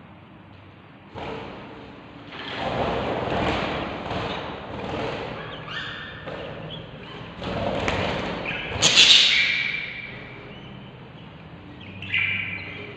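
Baby budgerigars in a nest box, giving harsh, raspy begging calls in several loud bursts, the loudest about nine seconds in, with short higher chirps near the end and some thuds of movement.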